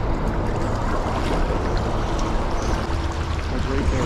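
Steady rushing noise of moving water current along a rocky canal shore, heavy in the low end and even in level.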